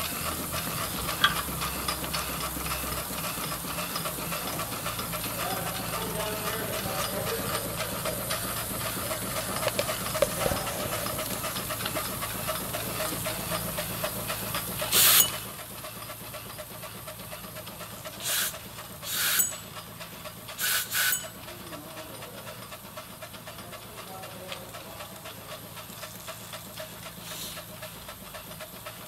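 Quarter-scale model 1915 Case steam traction engine running with a steady steam hiss and a fast, even beat. About halfway through, a loud blast of escaping steam comes, after which the running is quieter. Three shorter bursts of steam follow a few seconds later.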